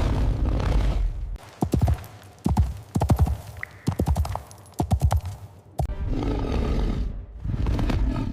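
Animal sound effects: a breathy, noisy call over a low rumble at the start and again near the end, with a run of sharp knocks in between, like hoofbeats or heavy steps.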